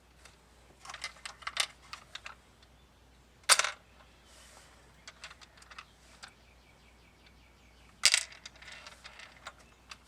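Small hardware being handled by hand: a run of light clicks and clinks, a sharp knock about three and a half seconds in, and another knock about eight seconds in followed by a brief rattle.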